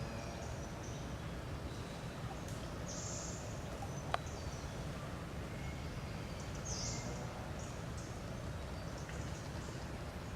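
Outdoor background noise: a steady low rumble, with short high-pitched chirps about three and seven seconds in and a single sharp click near the middle.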